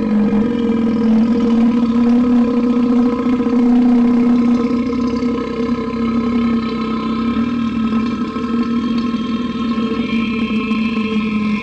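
One very long, loud burp held at a nearly steady pitch, with a rough, rasping texture.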